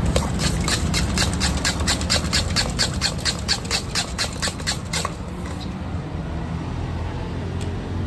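Steel spoon clanking against a steel bowl as bhel is mixed, about four quick strikes a second; the clanking stops about five seconds in, leaving a steady low hum.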